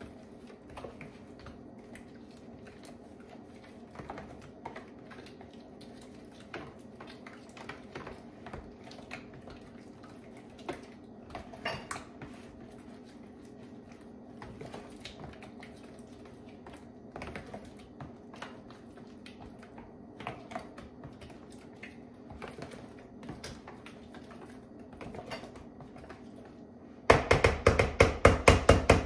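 A utensil stirring instant mashed potatoes in a bowl: scattered light clicks and scrapes against the bowl over a steady low hum. Near the end the mixing turns to fast, loud beating, about eight to ten strokes a second, for roughly two seconds.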